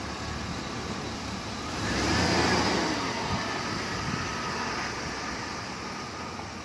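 2005 Chevy 2500HD pickup engine idling, revved once briefly about two seconds in, then settling back to idle. The engine has a misfire and a knock that the owner says shows up around 2,000 rpm.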